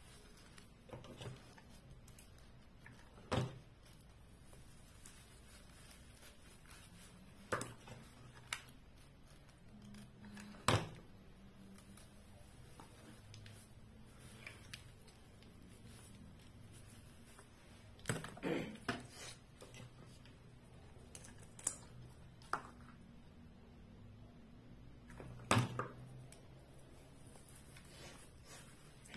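Scattered light clicks and knocks from small plastic Christmas ornament balls handled against a table and a tinsel wreath while they are glued on. The clicks come a few seconds apart, with a quick cluster of several past the middle.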